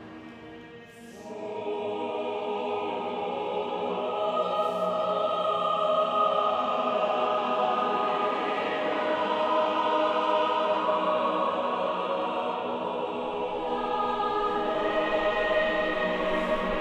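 Soundtrack music of sustained, choir-like voices holding chords. It swells in about a second in and then carries on steadily.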